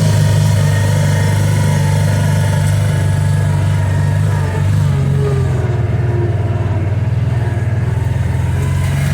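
Kawasaki Teryx 800 side-by-side's V-twin engine running steadily as it drives along a trail, easing off briefly about halfway through.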